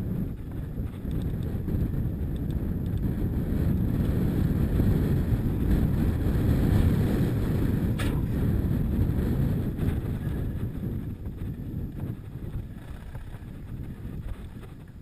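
Wind buffeting the microphone with low rumble from tyres running over a rough dirt track at speed; a single sharp knock about eight seconds in, and the noise eases off toward the end.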